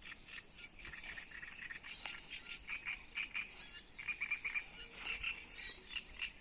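Frogs croaking in a chorus of short, quickly repeated calls.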